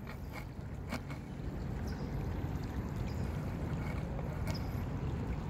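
Steady low wind rumble on the microphone, with a few faint clicks.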